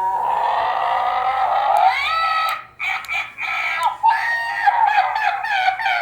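Electronic toy sound from a toy's small speaker: a long held, voice-like note that glides up in pitch about two seconds in, then breaks off briefly and goes on wavering.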